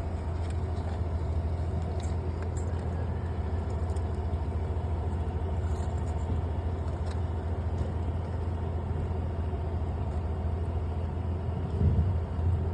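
Car engine idling, a steady low hum with a soft thump near the end.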